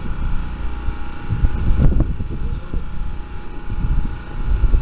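A fishing boat's engine running with a steady hum and a couple of faint high steady tones, with irregular low thumps and rumbles over it.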